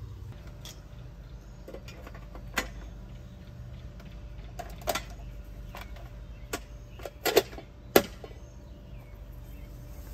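Hand work on refrigerant service fittings: scattered sharp clicks and knocks of tools and brass fittings being handled, with a quick double knock about seven seconds in, over a steady low hum.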